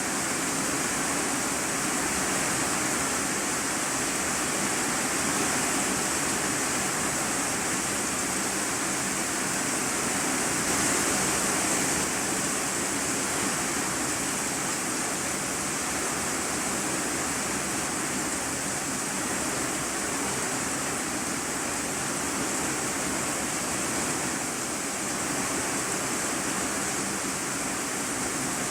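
Heavy rain drumming steadily on a corrugated iron-sheet roof, heard from the room beneath it as an even, unbroken hiss.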